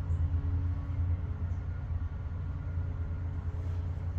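Steady low background rumble with a faint, even machine hum running through it.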